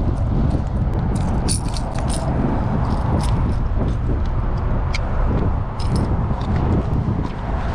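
Wind rumbling on the microphone, with scattered light clicks and rattles of fishing tackle being handled, a cluster of them about a second and a half in.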